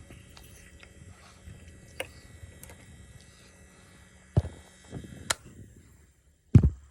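Mukbang eating sounds: scattered wet mouth clicks and chewing, with a few dull thumps, the loudest near the end.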